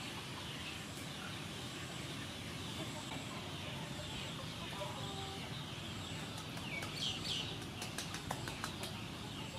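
Chickens clucking in the background over steady outdoor ambience, with a few short calls about seven seconds in. A run of light taps near the end comes as hands rub salt into the skin of a boiled pork belly slab on a wooden board.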